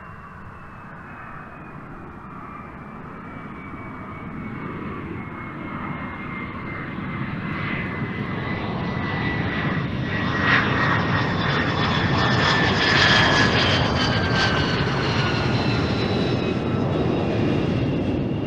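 An F-22 Raptor's twin Pratt & Whitney F119 turbofan engines: a high jet whine that glides slowly down in pitch over a broad roar. The sound grows steadily louder and is loudest in the second half.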